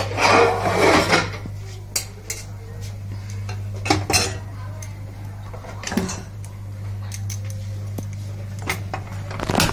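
Metal spoon stirring and scraping in an aluminium pot of milk and rice, loudest in the first second, followed by a few separate sharp metallic clinks and knocks of spoon and cookware. A steady low hum runs underneath.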